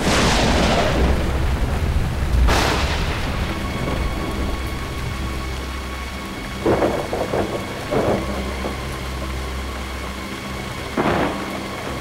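Thunder over steady rain: a loud crack at the start and another a couple of seconds later, each dying away slowly, then shorter rolls of thunder about two-thirds of the way in and again near the end.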